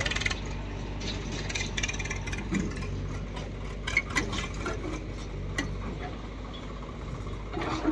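Diesel engine running steadily at idle, a low hum, with scattered light clicks and knocks.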